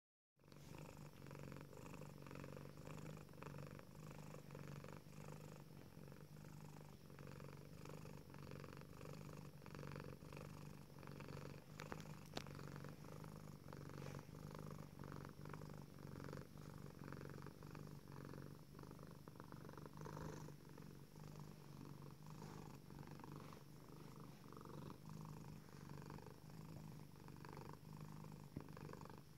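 Domestic tuxedo cat purring: a soft, steady, continuous purr of contentment while she is stroked. Two brief faint ticks come about twelve seconds in.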